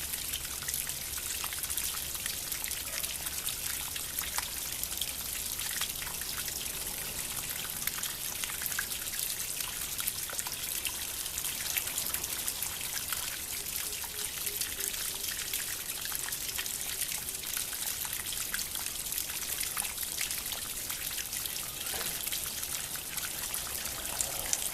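Small water fountain trickling and splashing steadily, a constant patter of falling water.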